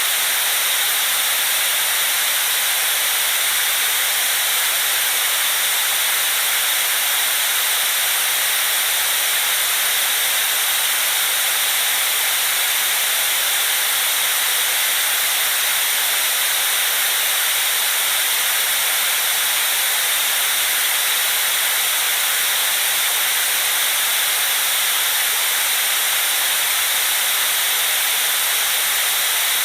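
Steady white noise: an even, unchanging high hiss with almost no low rumble beneath it.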